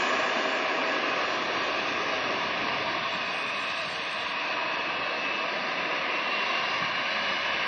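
Jet airliner engines running, a steady rush of noise with a faint high whine over it.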